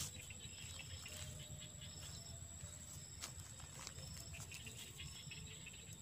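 Insects in the vegetation: a steady high-pitched whine with a short high chirp repeating every second or two, over a low rumble. A few faint rustles and one sharper click about halfway through.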